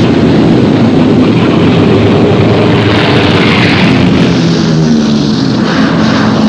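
Loud, steady drone of a propeller aircraft's piston engine, its note shifting a little in pitch in the second half.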